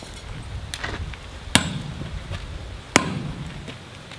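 Hammer blows driving a steel drift through the square hardy hole of a striking anvil: a light knock, then two heavy ringing metal strikes about a second and a half apart.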